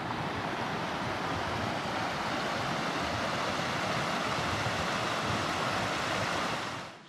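A steady rush of wind, an even hiss with no pitch, swelling in at the start and dying away near the end.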